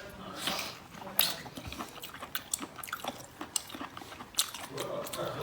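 Close-miked eating sounds: a person biting and chewing seafood, with irregular sharp clicks and crunches.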